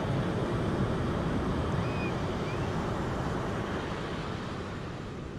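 Steady rush of flowing water that eases slightly toward the end, with two faint high chirps about two seconds in.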